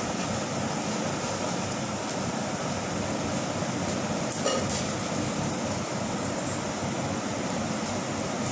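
Steady whirring background noise, like a fan or air conditioner running, with one brief click about four and a half seconds in.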